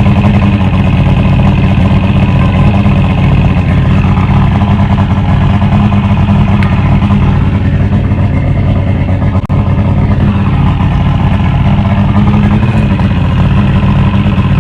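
1999 Johnson 150 Ocean Pro V6 two-stroke outboard running steadily after a full rebuild, loud and even. It cuts off abruptly at the end.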